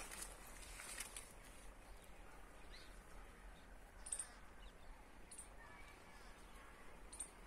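Near silence with faint outdoor hiss and a few short, high chirps from small birds, spread over several seconds.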